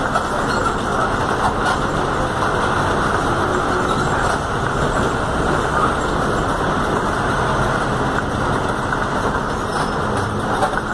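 Volkswagen 17-230 OD city bus under way, its engine and road noise heard inside the passenger cabin as a steady rumbling drone with a faint hum.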